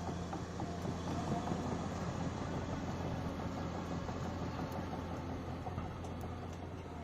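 Heavy diesel engine running steadily with a constant low rumble.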